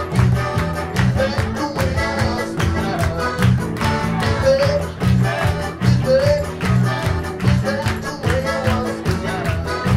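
Live band music: a man singing into a microphone over a five-string electric bass guitar and a steady, even beat.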